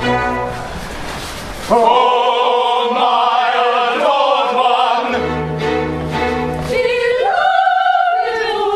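Operatic singing with orchestra: the orchestra plays alone at first, then about two seconds in a high voice enters singing long held notes with vibrato over it. The voice steps up in pitch near the end.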